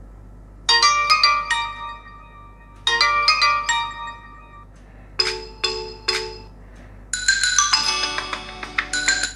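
OnePlus 7 Pro loudspeaker playing short previews of its built-in ringtones at full volume: four bright, marimba- and bell-like melodies one after another, each breaking off after a second or two as the next one starts.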